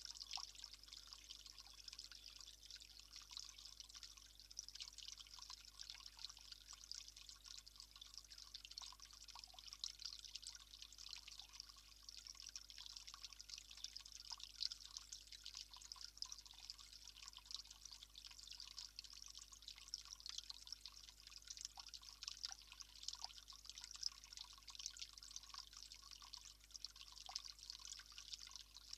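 Faint, steady trickle of running water, with small drips and splashes, from a garden water feature spilling into its basin.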